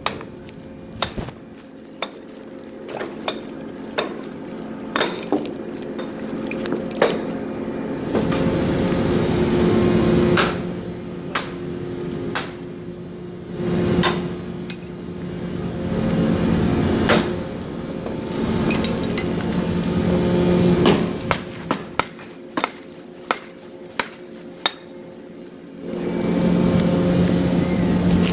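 Steel clanks and knocks of tools and equipment on a drilling-rig floor, scattered throughout, over a steady hum of rig machinery that swells and eases several times.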